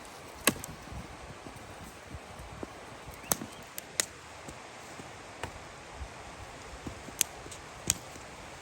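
Dry sticks snapping while firewood is gathered: about six sharp cracks at uneven intervals over a low outdoor background hiss.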